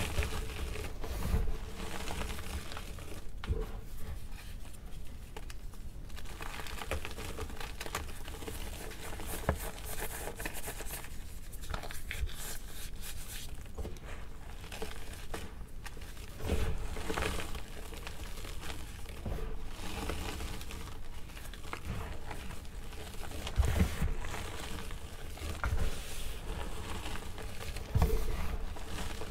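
Gloved hands squeezing and crumbling gym chalk blocks into a tray of loose chalk powder: a continuous soft, dusty crunching, with louder crunches here and there.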